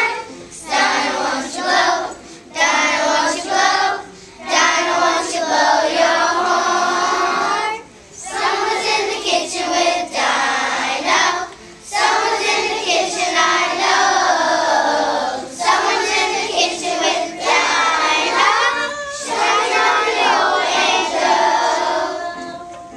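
A group of children singing a song together in unison, phrase after phrase with short breaths between, ending just before the close.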